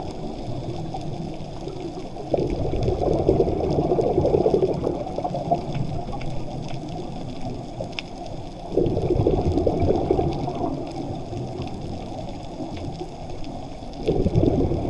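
Muffled underwater sound picked up through a camera's waterproof housing: a dull rush of moving water that swells about two seconds in, again near nine seconds and near the end, with faint clicks above it.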